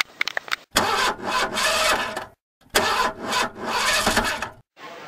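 A few light clicks, then two long rough rasping scrapes of about a second and a half each, separated by a brief silence.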